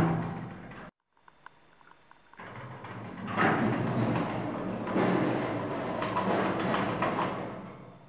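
Sliding elevator doors: the tail of the doors shutting dies away in the first second, then after a brief silence the doors slide open with a rough mechanical noise that swells several times over about five seconds and fades as they come fully open.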